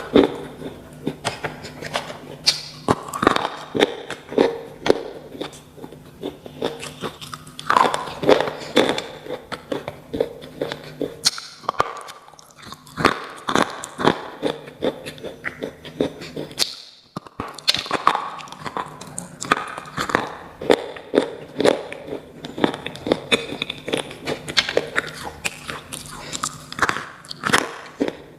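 A person biting and chewing slate pencils: dense, irregular crunches and crackles close to the microphone, with a brief break about two thirds of the way through. A low steady hum runs under the first half.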